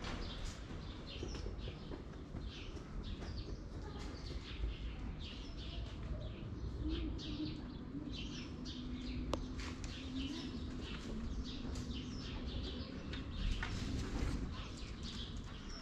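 Small songbirds chirping and twittering, many short high calls overlapping throughout, over a low rumbling noise.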